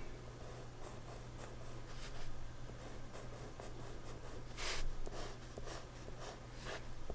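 Mechanical colored pencil lead scratching on sketch-pad paper in repeated back-and-forth strokes as a swatch is filled in, one stroke louder a little past halfway.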